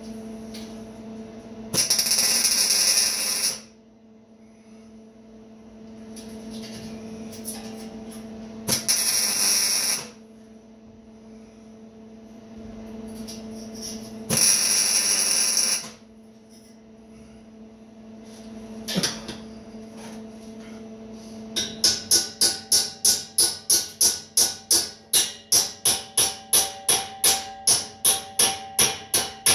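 Three short, loud hissing bursts, each about a second and a half long, over a steady low hum. Then, from about three quarters of the way in, fast rhythmic hammering on steel: about three ringing strikes a second.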